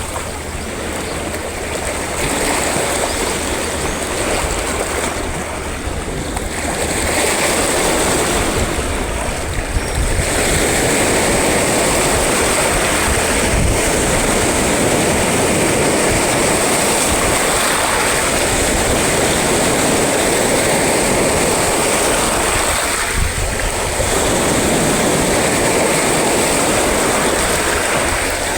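Sea surf breaking and washing up the shore: a continuous loud rush of waves that swells and eases.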